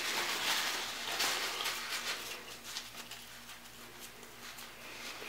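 Paper towel rustling and crinkling as it is crumpled and twisted into a thin rope by hand, louder in the first couple of seconds, then fading to faint handling noise.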